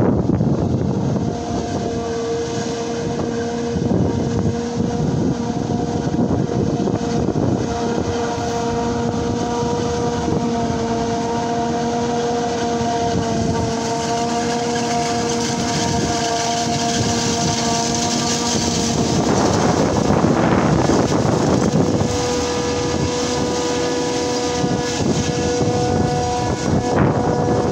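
Self-propelled forage harvester chopping maize: a steady machine drone with a high, even whine on top. About twenty seconds in, a gust of wind rushes over the microphone for a couple of seconds.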